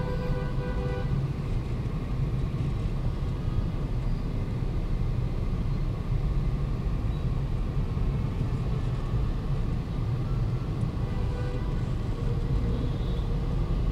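Dense, slow-moving city traffic: motorbike, car and minibus engines running together as a steady low rumble.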